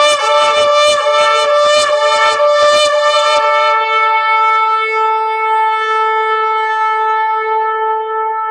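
Shofar (ram's horn) blown: a quick run of short staccato blasts for about three seconds, then one long held note.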